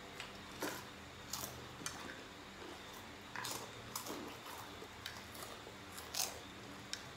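People eating: scattered short, irregular crunches and chewing sounds, the loudest about six seconds in.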